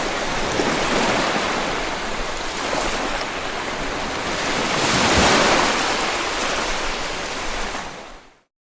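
Ocean waves washing in, with one wave swelling louder about five seconds in, then fading out near the end.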